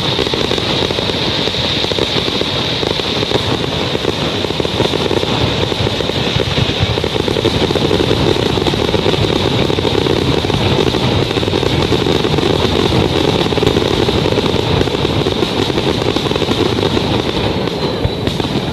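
Fireworks finale barrage: many shells bursting in such rapid succession that they merge into one continuous rumble and crackle, with a steady high-pitched whine over it.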